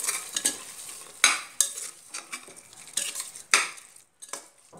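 Steel slotted spatula scraping and stirring soaked basmati rice into frying masala in a pressure-cooker pot: about six uneven strokes, two of them louder scrapes, over a faint sizzle.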